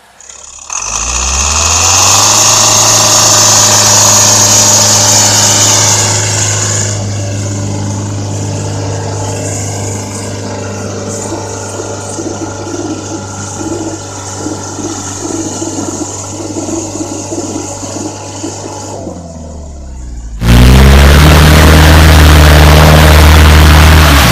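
ARO 4x4 off-road vehicle engines working hard off-road, across several clips. An engine revs up about a second in and holds a steady high note with a hiss over it, then runs on more quietly under load. About twenty seconds in, a sudden cut brings a louder engine revving.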